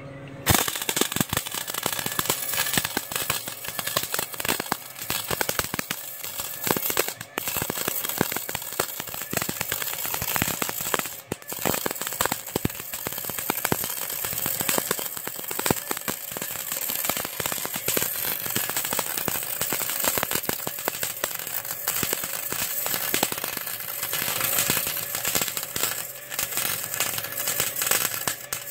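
Wire-feed welder arc crackling steadily while welding a joint in an exhaust pipe. It strikes about half a second in and breaks off twice for a moment as the trigger is released and pulled again.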